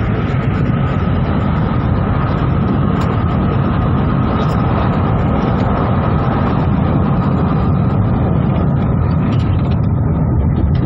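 Tyre and wind noise heard inside a car's cabin as it coasts at about 80 to 100 km/h with its engine switched off: a steady, even noise with no engine note.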